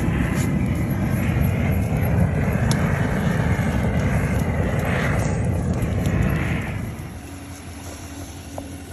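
Gas blowtorch roaring steadily as its flame singes the fur off squirrel carcasses. It stops abruptly about seven seconds in.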